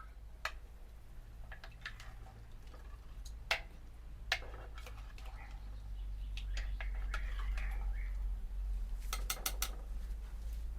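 Scattered clinks and knocks of dishes and cooking utensils, with a quick run of four clicks near the end, over a steady low rumble.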